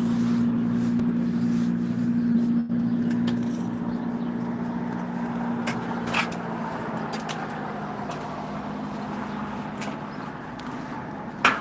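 An engine running steadily, its hum dying away about halfway through, with a few sharp clicks.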